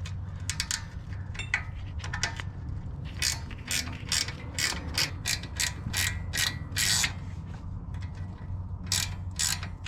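Ratchet wrench clicking in repeated short back-strokes while loosening a small 10 mm nut on the parking brake cable's lever arm.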